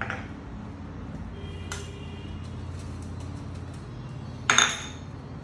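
Kitchenware clinking as a small bowl knocks against a stainless-steel sieve while icing sugar is tipped in: a light ringing click early, and a louder, sharp ringing clink near the end.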